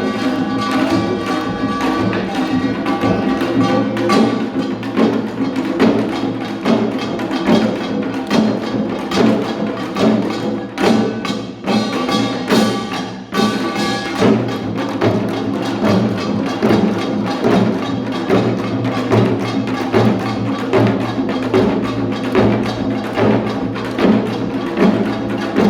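Live music with sustained pitched instruments over a regular percussive beat, about two strokes a second.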